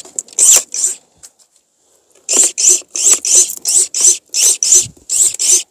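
Cordless electric pruning shears snipping through dead branches of a Japanese apricot (maesil) tree: two cuts, a pause of about a second and a half, then a fast run of short, sharp cuts, about five a second.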